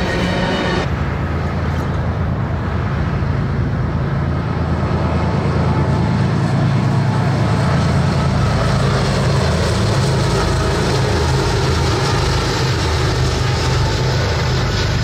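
Diesel freight locomotives running under power: a steady low engine drone with rumbling noise over it, growing a little louder past the middle.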